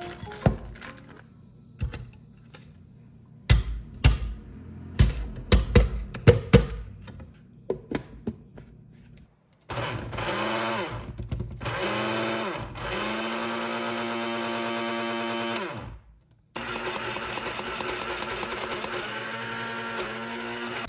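A few knocks and clatters of hard items being handled, then a small electric kitchen appliance motor starts. It runs in short on-off bursts, each winding up and down in pitch, then runs steadily. It stops briefly about three-quarters of the way through and starts again.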